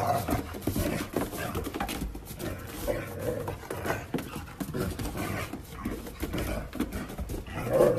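Small white dog playing excitedly on a snow-covered wooden deck: dog noises and panting, with its paws scrabbling and scuffing on the boards in many quick taps. It is louder at the start and again near the end.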